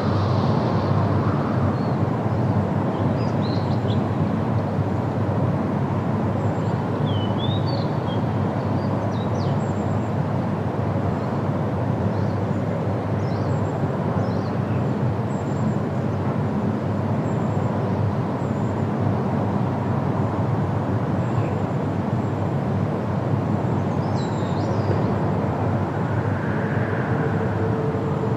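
Steady low outdoor rumble, with faint short high chirps now and then.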